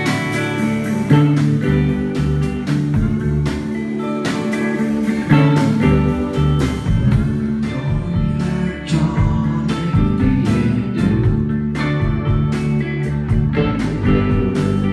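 Live rock band playing: electric guitar over a steady drum beat.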